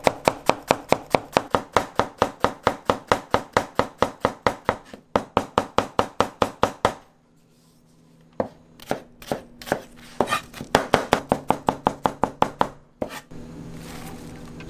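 Large kitchen knife chopping onion on a plastic cutting board in rapid, even strokes, about five a second. The chopping breaks off for about a second midway, starts again with a few slower strokes, then picks up speed again. Near the end it stops and a steady hum takes over.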